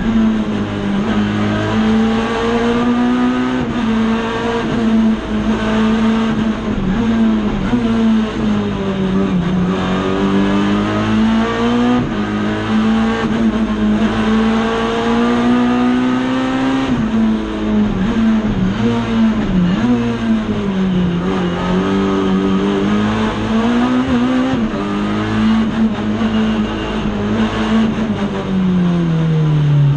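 Race car engine heard from inside the cockpit, under hard driving on a winding climb: the engine note keeps rising and falling as the car accelerates and lifts through the bends, dropping lower about a third of the way in, about two-thirds of the way in and again at the end.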